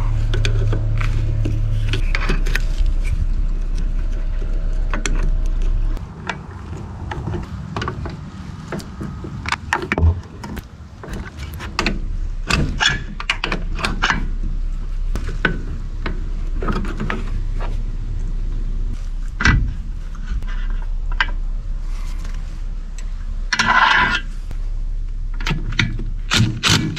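Hand tools and metal parts clinking, knocking and scraping as a MerCruiser Alpha One stern drive is worked on for removal. A steady low hum cuts off about six seconds in, and a short louder rasp comes near the end.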